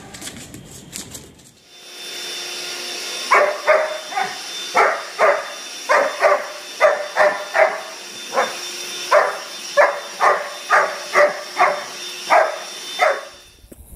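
A German Shepherd barking rapidly and repeatedly, roughly two barks a second, at a running vacuum cleaner. The vacuum's steady motor hum starts about two seconds in, and both stop just before the end.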